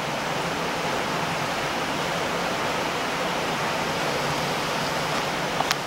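A steady rushing hiss with a faint low hum under it, and a couple of light clicks near the end.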